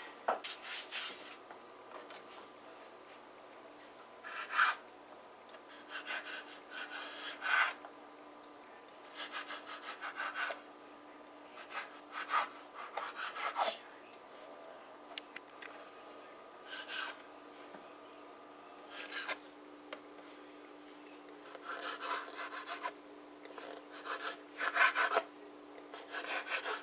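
Chef's knife cutting rolled roti dough into strips on a wooden cutting board: short scraping strokes of the blade through the dough and against the board, coming in irregular groups every few seconds.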